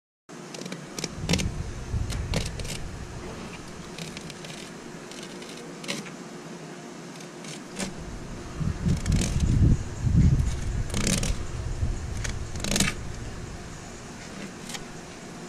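Fillet knife working along a snakehead's body on a fish-cleaning table: scattered small clicks and scrapes, with a louder stretch of low rumbling about eight to eleven seconds in.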